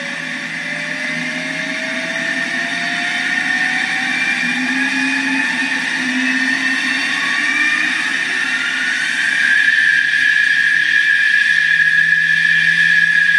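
F/A-18 jet engine sound effect played very loud through a model soundboard's two speakers in a Skymaster F-18 ducted-fan model. A turbine whine climbs steadily in pitch and gets louder over about nine seconds as it spools up, then holds a high steady whine.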